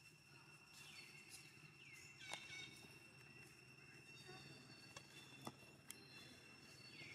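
Faint, steady, high-pitched insect drone in the background. A few short calls that dip in pitch come over it at about one second in, two seconds in and near the end, along with a few light clicks.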